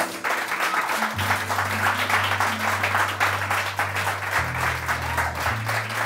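Audience applauding steadily, with low held music notes underneath that change pitch twice near the end.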